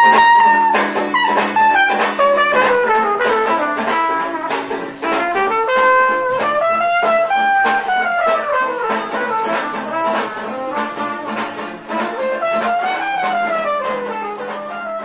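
Live jazz: a trumpet plays a melody in long phrases that rise and fall, over a steady plucked-string accompaniment.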